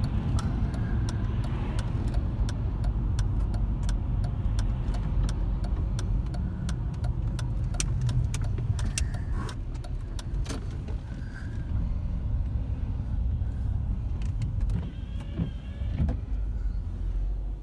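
Car interior road noise while driving in the rain: a steady low rumble from the engine and wet tyres, with scattered sharp ticks of raindrops on the windscreen, a little quieter near the end as the car slows.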